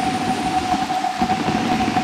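A steady, unwavering electronic tone held over a low rumbling, fluttering noise.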